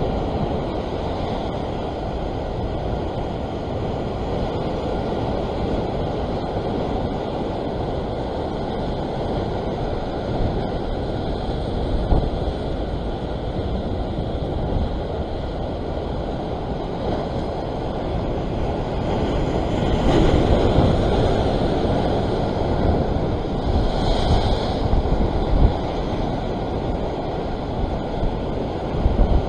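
Ocean surf washing and foaming against a rock ledge, with wind buffeting the microphone; the wash swells louder about twenty seconds in and again a few seconds later.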